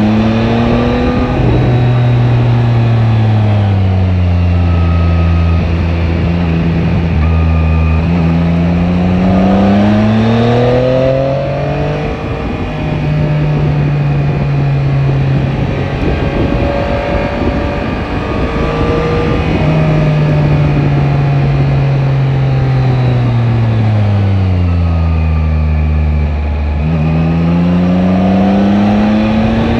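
Yamaha Tracer 9 GT's 890 cc three-cylinder engine running under load while riding, its pitch climbing and falling with gear changes and slowing twice, over a steady rush of wind.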